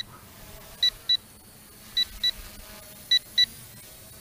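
Electronic beeper on the KS66 toy drone's kit giving short, high double beeps, a pair a little over once a second, in a steady repeating pattern. The beeping is constant, and the cause is unknown to the pilot.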